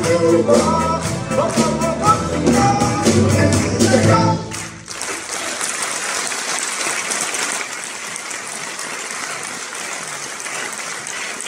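A live band with accordion, keyboard, guitars and drums plays the last bars of a song, which ends abruptly about five seconds in. The audience then applauds steadily.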